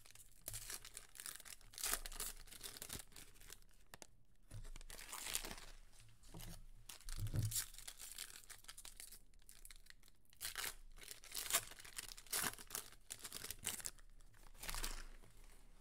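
Wrappers of trading-card packs being torn open and crinkled as the cards are pulled out, heard as short, irregular rustling and tearing bursts.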